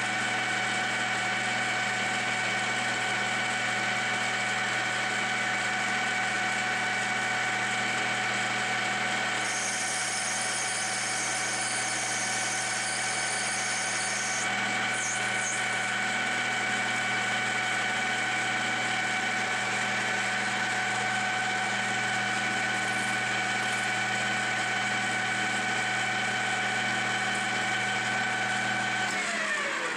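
A 13x40 metal lathe running with a steady motor whine and hum as a carbide tool turns a brass hose-barb fitting. A high cutting hiss joins in for about five seconds around a third of the way through. Near the end the motor is switched off and its whine falls in pitch as the spindle coasts down.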